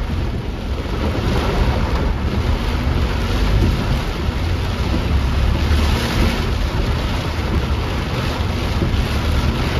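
Heavy rain falling on the roof and windscreen of a Maruti Suzuki WagonR, heard from inside the cabin, with a steady low rumble as the car moves along a waterlogged road.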